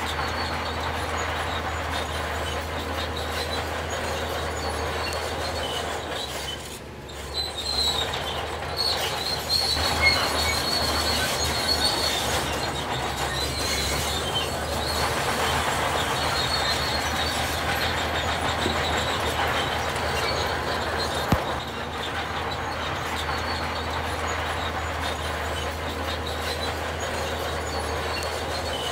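Heavy earthmoving machinery running with a steady mechanical noise and high metallic squealing, strongest in the middle stretch; it drops off briefly once and there is a single sharp click later on.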